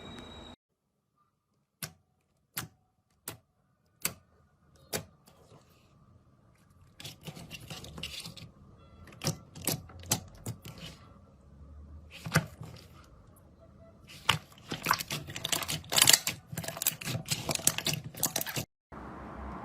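Slime being handled and pressed, making sharp clicking pops: five single clicks spaced under a second apart, then a denser run of crackling clicks that grows louder and cuts off suddenly near the end.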